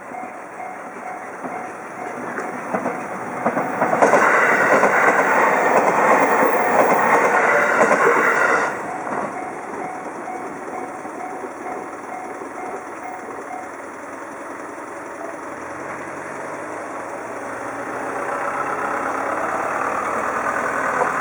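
Japanese railroad-crossing warning bell ringing in a steady repeating beat. About four seconds in, a train passes with loud rail noise for about five seconds. The bell stops about halfway through, and a vehicle engine then speeds up, rising in pitch.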